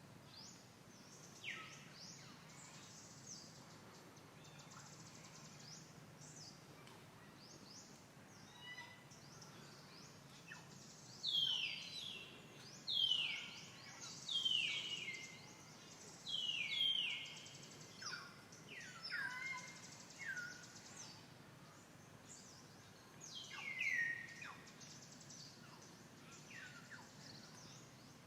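A monkey's high-pitched fear screams, a string of short calls that each fall steeply in pitch, beginning about ten seconds in and coming in quick succession for several seconds, with one more near the end: the alarm sound of a monkey feeling threatened by another.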